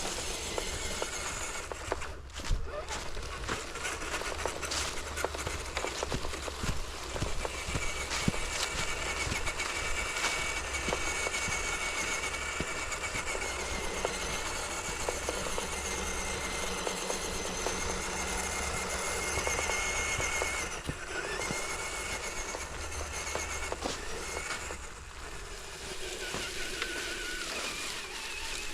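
Scale RC crawler truck driving over the forest floor: a thin whine from its electric motor and gears, wavering slightly, runs through the middle of the stretch, over steady crackling and clicking of leaves and twigs.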